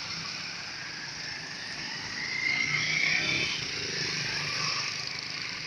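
Roadside street ambience: a steady wash of traffic noise with a low engine hum, swelling about two and a half seconds in as a vehicle engine, likely a motorcycle, grows louder and fades.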